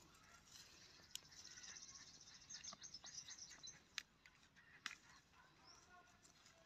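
Faint sharp snaps of green chilli pods and stems being broken off the plant by hand, a few single clicks with the loudest about four and five seconds in. A bird chirps rapidly and high in the background from about a second in until nearly four seconds.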